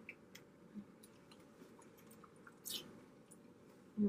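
Close-up eating sounds from a seafood boil: quiet chewing with small wet clicks and squishes. A short hiss comes about two-thirds of the way through, and a brief low knock near the end.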